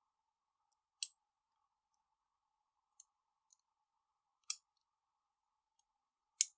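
Sparse, sharp little clicks of small metal knife parts and tools being handled during reassembly. Three louder clicks come about a second in, midway and near the end, the last the loudest, with fainter ticks between.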